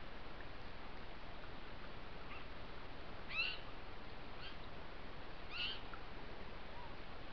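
Four short, high, rising calls from an animal, about a second apart, the second and fourth the loudest, over a steady hiss.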